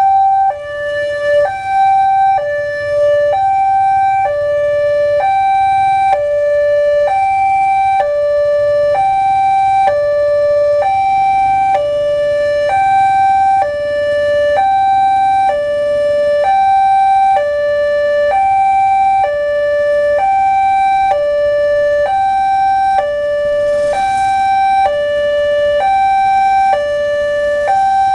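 Railway level-crossing warning alarm sounding: an electronic two-tone signal alternating steadily between a high and a low note, each held about a second, warning that a train is approaching.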